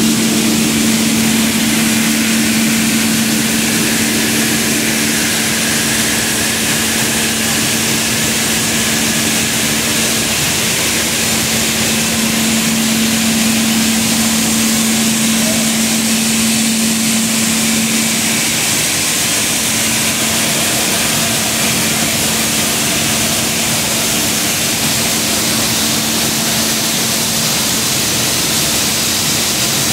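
Pinhalense coffee processing machinery running together: a loud, steady industrial din of fans, cleaners and vibrating sorting decks, with a steady low hum that fades out a little past halfway through.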